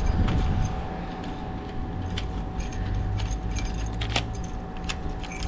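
Keys jangling, with small metallic clicks as a key is worked in a newly fitted double deadbolt lock.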